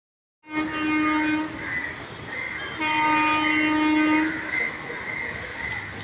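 Indian Railways locomotive horn sounding two blasts, the first about a second long starting half a second in, the second about a second and a half long starting near the middle. It is a warning to people near the track to move to a safe distance from the oncoming express, with a steady rushing noise from the approaching train underneath.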